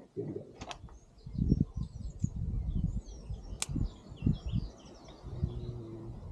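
Irregular clunks and knocks of tools being handled and tried, with one sharp click about three and a half seconds in, while small birds chirp in the background.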